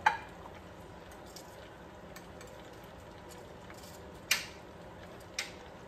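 Metal kitchen tongs clicking against a plate while lifting fried chicken pieces: a sharp click at the start, another about four seconds in, and a softer one a second later, over a low steady hiss.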